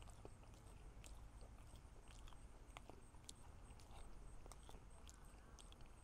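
Near silence with faint, irregular soft clicks of a person eating and chewing, over a low steady background rumble.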